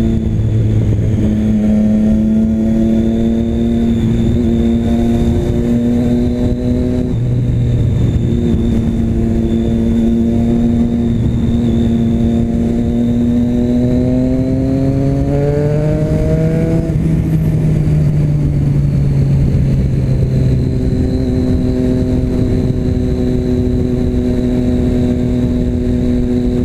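Motorcycle engine running through a new Jeskap aftermarket exhaust, its baffle insert still fitted, while riding. It holds a steady engine speed, then the revs climb for a few seconds about two-thirds of the way through, drop back, and settle into a steady run again.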